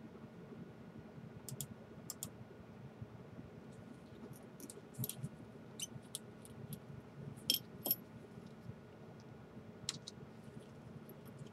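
Light, scattered clicks and taps of small hand tools and gloved fingers on the internal parts and metal frame of an opened Samsung Galaxy Note Pro 12.2 tablet, over a faint steady hum. The clicks bunch up from about four to eight seconds in, the sharpest two close together near the eight-second mark.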